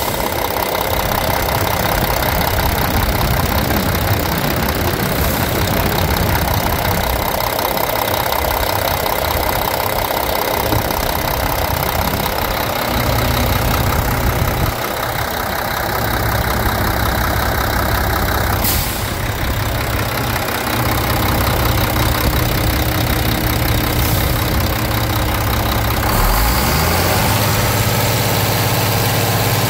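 1998 Mack E7-300 11.9-litre inline-six turbodiesel idling steadily. There is a click a little past the middle, and the engine note rises briefly near the end.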